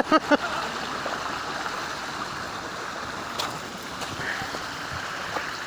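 Shallow stream running steadily over rocks, an even rushing of water, with a brief knock about three and a half seconds in.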